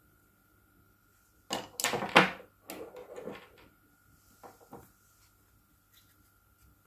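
Clicks and scraping of small hair-clipper parts being handled during disassembly. A dense, loud cluster comes about a second and a half in, followed by lighter clicks and two small knocks.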